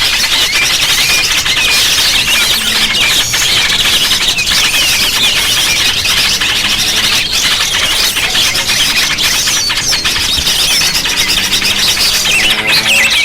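Dense, continuous chorus of many small birds chattering and squeaking at once, loud and unbroken: a small-bird lure call (suara pikat).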